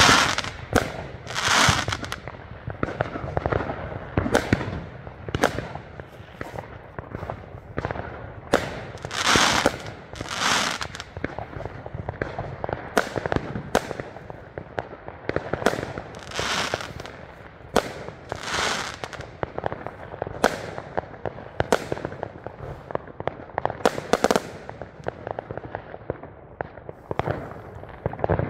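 Fireworks going off without pause: a rapid, irregular string of sharp bangs and pops, with longer, louder bursts every few seconds.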